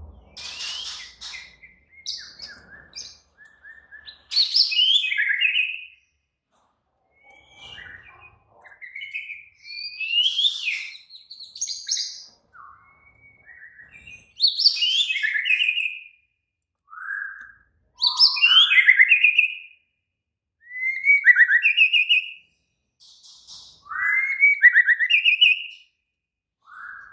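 White-rumped shama (murai batu) singing agitated, aggressive territorial song: a run of loud phrases of fast trills, whistles and quick pitch glides, each a second or two long with short pauses between.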